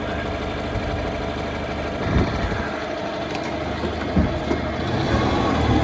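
Engine of a farm box-handling machine running steadily, getting a little louder near the end, with a couple of dull knocks about two and four seconds in.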